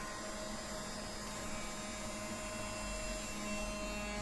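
Battery-powered toy vacuum cleaner's small motor running with a steady hum.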